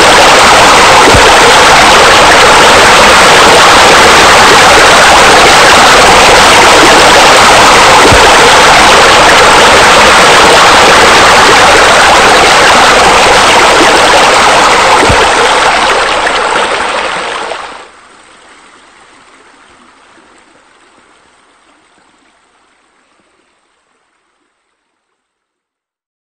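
Loud, steady rush of splashing water from pool water features: fountain jets, bubblers and a spa spillover. It fades about sixteen seconds in, drops off sharply soon after, and dies away to silence a few seconds before the end.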